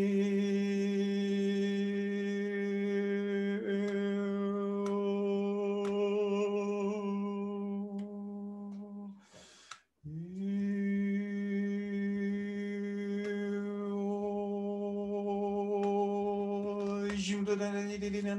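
A man's voice toning one steady, unchanging note, held for about nine seconds, broken by a quick breath in, then held again at the same pitch as meditative humming-chant toning.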